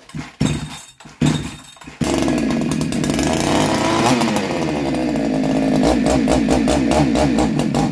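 Chinese 62cc two-stroke chainsaw being pull-started: two short bursts, then the engine catches about two seconds in and runs, its pitch rising and falling, before it stops abruptly near the end. It is running on a repaired Titan Tech ignition coil, and the owner thinks it will not keep running because it probably needs a bit more fuel.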